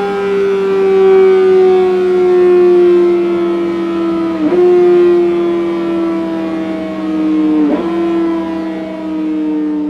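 Yamaha FZ6 Fazer's 600 cc inline-four running at high revs through its exhaust on a dyno, the pitch falling slowly and steadily as the revs wind down, with two brief dips in the note, about four and a half and about eight seconds in. A steady lower hum runs underneath.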